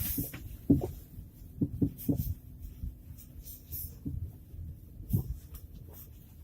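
Fiat Grande Punto suspension knocking: irregular dull knocks, a few close together then sparser, over a faint steady low hum. It is the knock in the running gear that the owner is recording as a fault.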